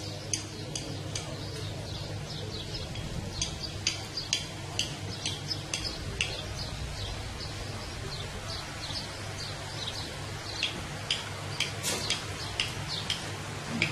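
Small birds chirping: many short, high calls, often several a second, over a steady low rumble.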